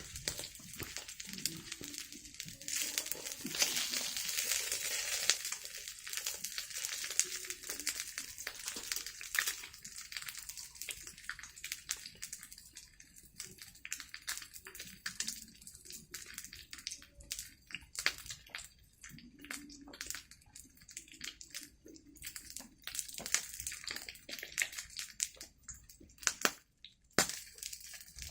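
Crackling and hissing from cooking over a wood fire: many small sharp crackles throughout, with a louder stretch of hiss a few seconds in.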